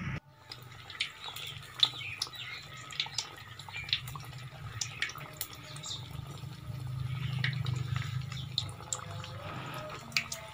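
Samosas deep-frying in hot ghee: the fat sizzles and crackles with scattered sharp pops as a slotted metal spoon turns them. A low hum runs underneath, louder about seven seconds in.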